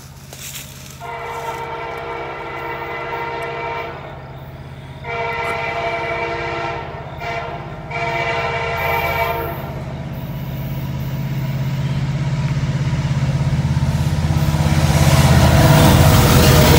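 Norfolk Southern diesel locomotives' multi-chime air horn sounding the grade-crossing signal: two long blasts, a short one and a long one. The locomotives' diesel engines and wheels then grow steadily louder and are loudest near the end as the lead units pass close by.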